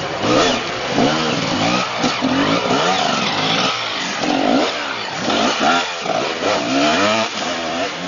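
Enduro dirt bike engine revving hard, its pitch rising and falling again and again as the throttle is worked over a steep dirt mound.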